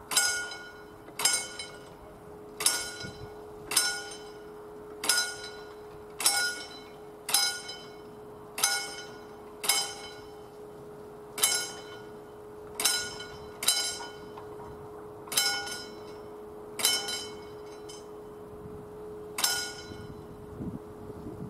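Railway level-crossing warning bell ringing single strokes, about one every 1.3 seconds, while the crossing barriers come down. The strokes stop about 19.5 seconds in, once the booms are lowered. A steady low two-tone hum runs underneath.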